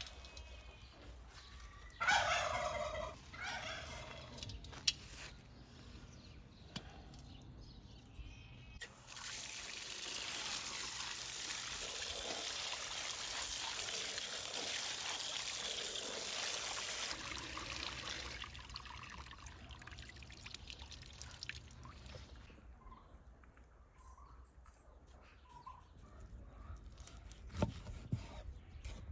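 A turkey gobbles about two seconds in. Later, water runs for about nine seconds onto peppers, tomatoes and eggplants in a metal colander as they are rinsed.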